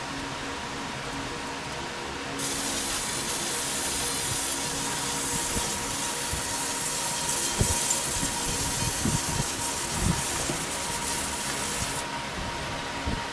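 70 W SPI fiber laser marking machine deep-engraving copper: a steady high hiss from the beam ablating the metal starts about two seconds in and cuts off near the end, over the machine's steady hum. A few soft low knocks come in the middle.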